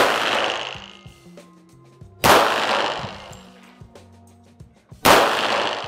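Three pistol shots fired slowly, one at the very start, one a little over two seconds in and one about five seconds in, each followed by a trailing echo.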